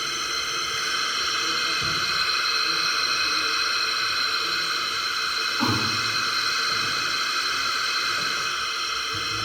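Steady radio static hiss from a phone's radio, with a soft low thump about five and a half seconds in.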